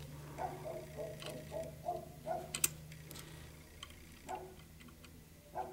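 Faint, irregular metallic ticks and clicks of a lock pick working the levers of a 7-lever safe-door lock under light tension, closely spaced at first and sparser toward the end.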